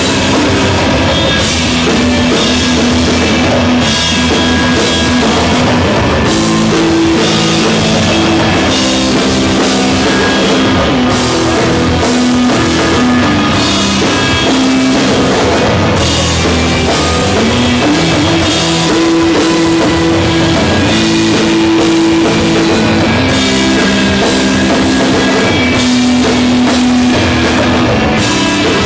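Stoner rock band playing live: drum kit with cymbals, electric guitar and bass, loud and steady, the bass line moving between long held notes every second or two.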